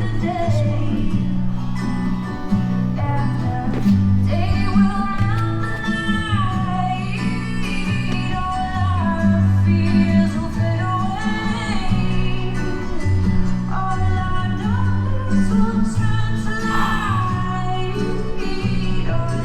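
Background music: a song with a sung melody over guitar and a steady bass line.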